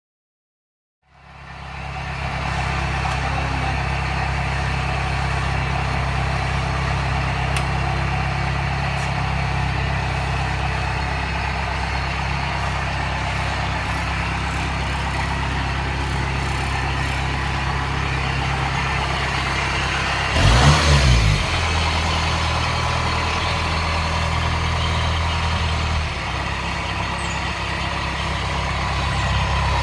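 Kubota combine harvester engine running steadily, cutting in about a second in. About twenty seconds in it briefly gets louder with a wavering pitch, then settles back to a steady run.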